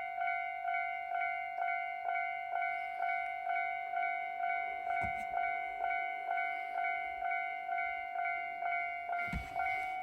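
Railway level crossing warning bell ringing 'kan-kan', with evenly repeated strokes a little under three times a second, each stroke ringing on and fading before the next.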